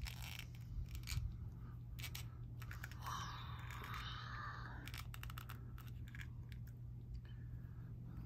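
Handling noise from a plastic toy crocodile figure being posed by hand: scattered small clicks as its jaw and limbs are worked, with a brief scraping rub about three seconds in.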